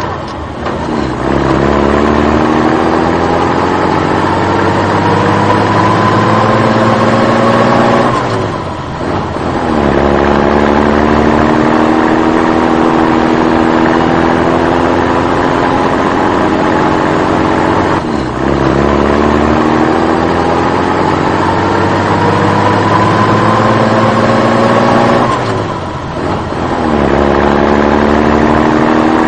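Vehicle engine sound effect: the engine pulls up steadily in pitch for several seconds as if accelerating, drops briefly, then holds a steady note, and the same stretch repeats as a loop.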